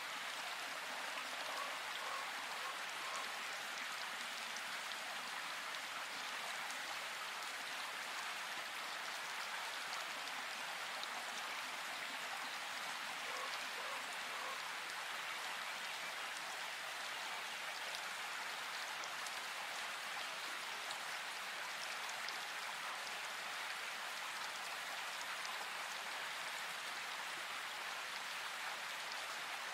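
A steady, even hiss like falling rain, with no breaks or changes.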